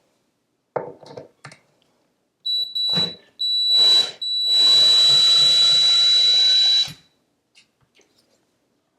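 Cordless drill-driver running in three bursts, the last about two and a half seconds long, with a steady high whine, backing out cabinet door hinge screws. A few short clicks and knocks come before it.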